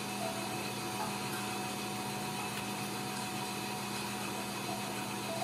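Steady machine-like hum and hiss. Faint, brief squeaks from newborn ragdoll kittens come just after the start and again near the end.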